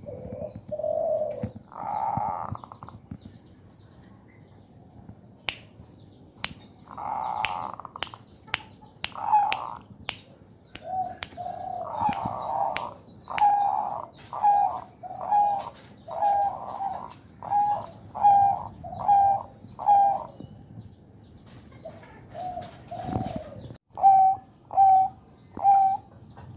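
Male zebra dove cooing in runs of short, evenly spaced notes, the bekur call of a bird in breeding condition, with a few harsher, grating ngerot calls in the first half. Sharp finger clicks come through the middle, used to set the bird off.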